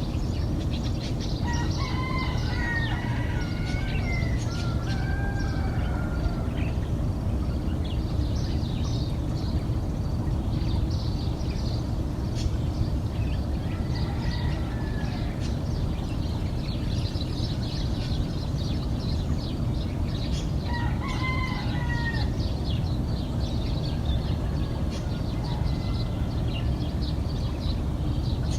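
Roosters crowing: a long crow starting about a second and a half in, another around fourteen seconds, and a third about twenty-one seconds in. Small birds chirp throughout over a steady low background rumble.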